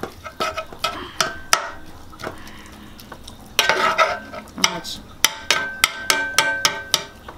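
Metal spatula knocking and scraping against an electric skillet as browning ground beef is chopped into crumbles, with a faster run of taps in the second half.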